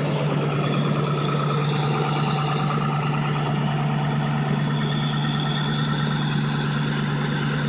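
2002 Ford F-250's 7.3 Powerstroke V8 turbo diesel idling steadily while still warming up from a cold start, breathing through a 4-inch MBRP exhaust with muffler.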